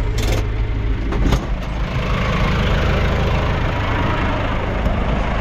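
Vehicle engine idling steadily, with a few sharp clicks or knocks in the first second and a half and a rushing noise that rises about two seconds in.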